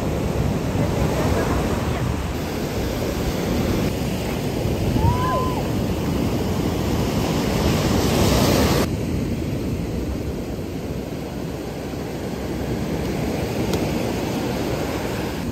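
Surf breaking and washing up a sandy beach: a steady rush of waves, with wind on the microphone.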